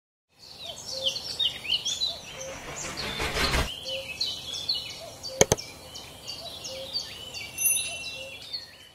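Several birds chirping and singing over one another in a busy chorus of short notes. About three seconds in a rushing whoosh swells and cuts off sharply, and a sharp double click sounds about halfway through.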